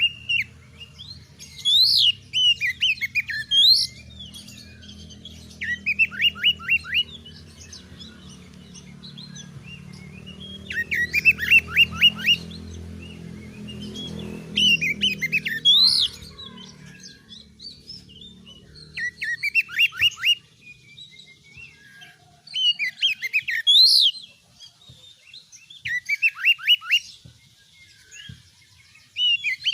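Oriental magpie-robin (kacer) singing in full voice. It repeats a loud phrase every few seconds, each a quick run of falling notes followed by higher, sharper whistles.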